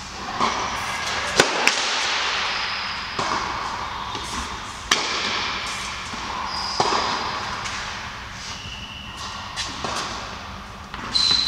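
Tennis ball being hit with rackets and bouncing on an indoor court: sharp hits a few seconds apart, echoing in a large hall, with a few brief high squeaks in between.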